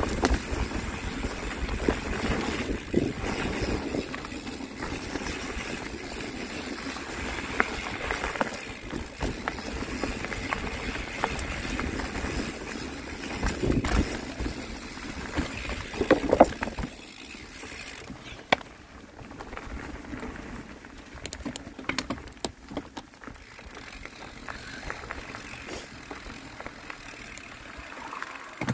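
Bicycle riding over a dirt trail: rumbling tyre noise and rattling knocks with wind on the microphone. It eases off about two-thirds through into quieter scattered clicks.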